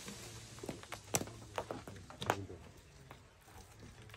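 A handful of separate sharp knocks and patters, the loudest about a second in and just after two seconds, as fruit drops from a shaken green thorn tree onto the ground among feeding elephants. A faint low hum lies under them.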